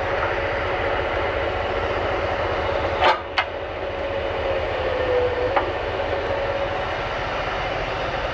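Homemade goose-foot rolling machine running steadily with a clattering rumble and a steady hum, with two sharp metal clanks about three seconds in and a lighter one a little over halfway.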